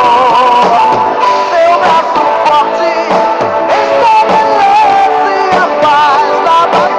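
Christian rock song playing loudly, with a sung melody over guitar and regular drum hits.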